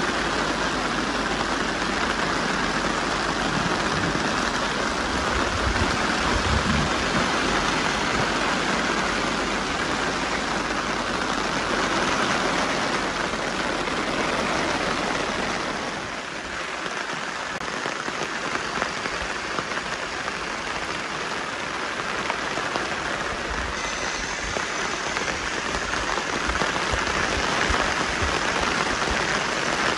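Steady rain pattering on a tarp overhead, easing slightly about halfway through.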